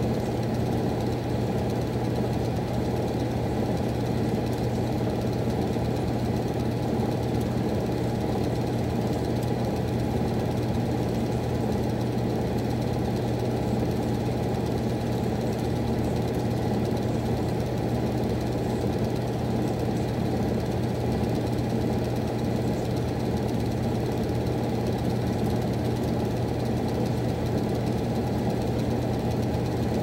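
Miller E2 furnace running, a steady low hum that does not change.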